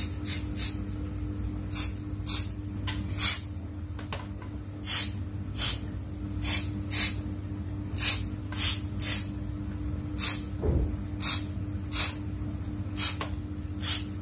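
Aerosol can of Rexco 18 contact cleaner sprayed in many short bursts, about one or two a second, onto the wiring and terminal board of an air conditioner's indoor unit to dry off water left from washing. A steady low hum runs underneath.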